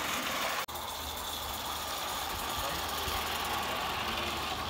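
Butane-fired live-steam model locomotive under steam, giving a steady hiss of steam and burner. The sound cuts out for an instant under a second in, then goes on unchanged.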